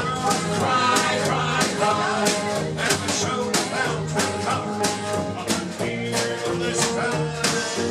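A live band playing a country song: drums keeping a steady beat under electric guitar and bass.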